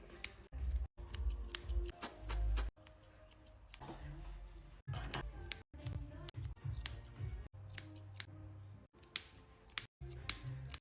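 Grooming scissors snipping through a dog's curly coat: a quick, irregular series of sharp snips.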